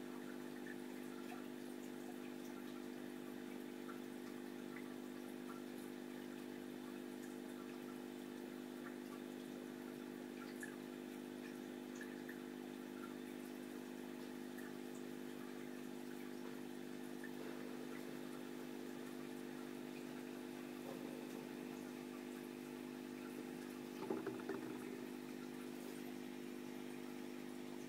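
Aquarium pump humming steadily, with faint water trickling and tiny drips. A brief louder bump about 24 seconds in.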